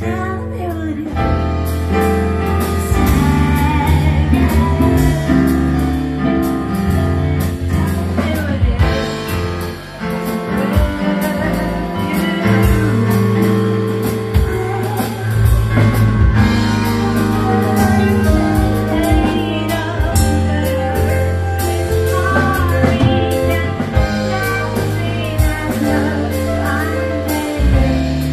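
A female vocalist singing live into a microphone, backed by a rock band with guitar, keyboard and drum kit playing a steady beat under sustained low notes.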